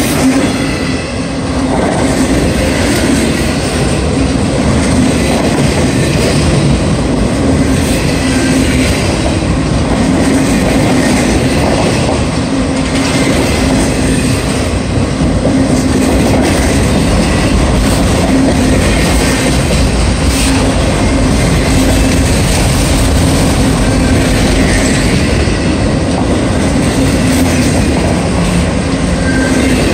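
Autorack freight cars rolling past close by: a loud, steady rumble of steel wheels on rail.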